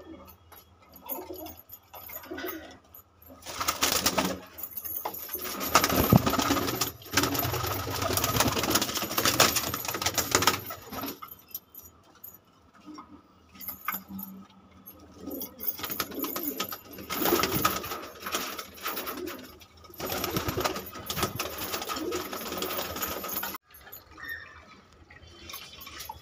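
Domestic pigeons cooing in a loft. There are two long stretches of louder rustling noise, one from about 4 to 11 seconds and one from about 16 to 23 seconds.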